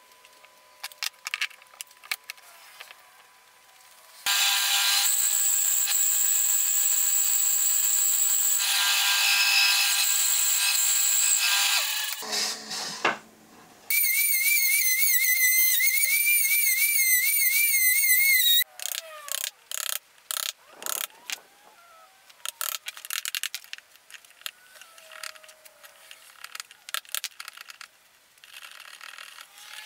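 A handheld trim router cutting into a hardwood block in two runs of several seconds, about four and fourteen seconds in. In the second run its high whine wavers as it cuts. Before and after, short clicks and knocks of hand work on the wood.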